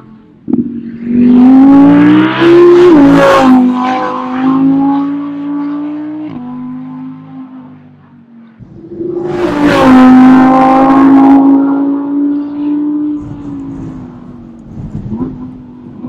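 Audi R8 prototype's V10 engine at full throttle, heard in two loud passes: in the first the pitch climbs and then drops sharply about three seconds in, and the second peaks about ten seconds in and fades as the car pulls away.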